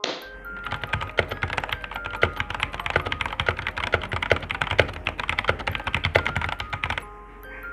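Fast touch-typing on a backlit mechanical keyboard: a rapid, uneven stream of key clicks that stops about a second before the end, with faint background music underneath.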